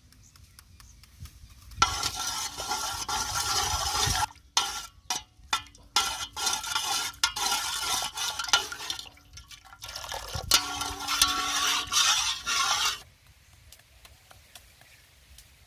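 Liquid syrup being poured and stirred in a container, in three spells with short breaks and a few clicks between them.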